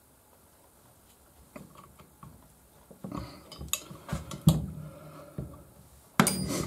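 Metal clinks and taps of a wrench and two M7 nuts being locked together on a cylinder stud of a Piaggio Ciao M1M moped engine, so the stud can be turned out. The clicks are scattered at first and get busier from about three seconds in, with a short, louder scrape near the end.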